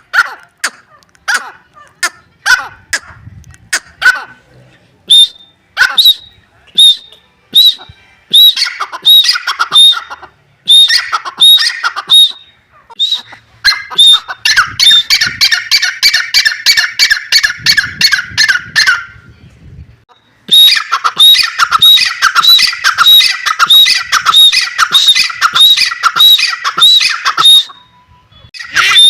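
Dakhni teetar (francolin) calling: sharp single calls about one or two a second, then from about eight seconds in long runs of rapid, shrill repeated notes separated by short pauses.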